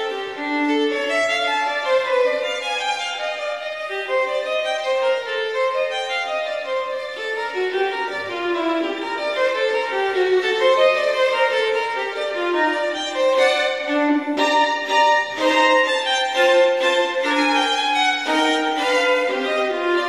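Instrumental background music: a melody of held notes moving up and down without pause.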